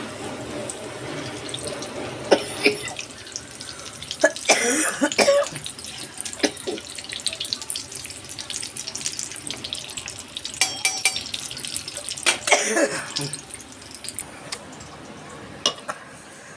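A sick person coughing in repeated short bouts, the heaviest clusters about four seconds in and again about twelve seconds in, over a steady background rush.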